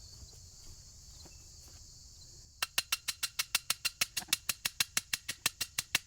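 An animal's rapid call: an even train of sharp clicks, about six or seven a second, that starts about two and a half seconds in. Before it, a steady high insect buzz.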